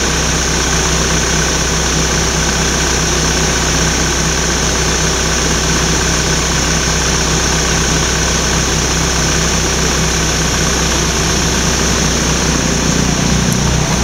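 Waterfall: a steady, loud rush of falling water, with a faint low hum underneath.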